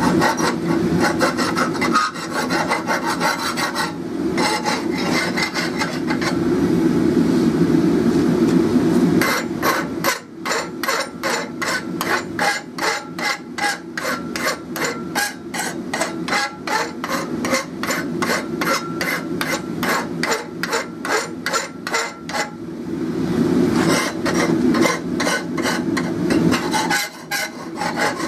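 Hand file rasping back and forth across a forged steel hook. The strokes run together at first, settle into quick even strokes about three a second in the middle, then run together again near the end.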